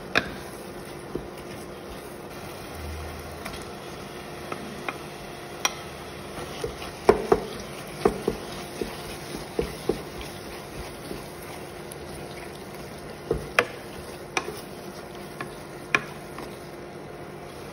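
A wooden spatula stirring a thick tomato, chicken and egg mixture in a nonstick pot, with scattered sharp knocks of the spatula against the pot, thickest around seven and thirteen seconds in, over a steady faint hum.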